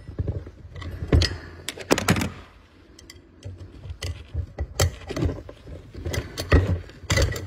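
Steel 4L80E transmission parts and hand tools clinking and clanking as a snap ring is worked off and a welded puller tool is removed: a run of irregular sharp metal knocks and clicks, some ringing briefly.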